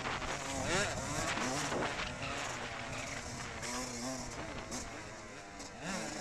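Motocross dirt bike engine revving hard on the track, its pitch climbing steeply and dropping back again and again as the throttle is worked and gears change.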